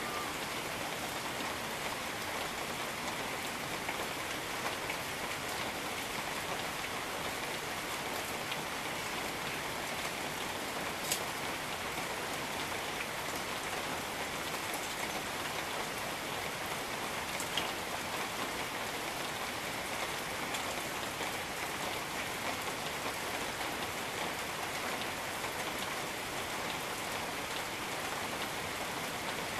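Steady rain falling on jungle foliage and surfaces, an even hiss with a few sharper drips standing out, one near the middle.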